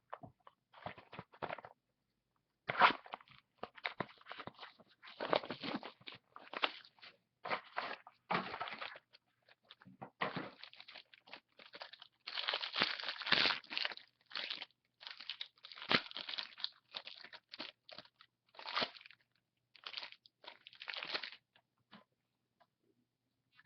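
Trading cards and their packaging being handled: irregular bursts of rustling and crinkling as packs are opened and cards are slid and sorted.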